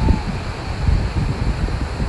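Wind buffeting the microphone in uneven gusts over the steady rush of a muddy flash flood pouring down a wadi.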